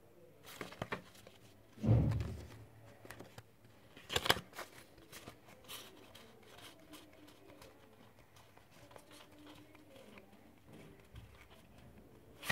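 Playing cards handled in the hands: fanned out, squared up and fanned again, with light scattered clicks and rustles of card on card. A soft thump comes about two seconds in and a sharper snap of the cards just after four seconds.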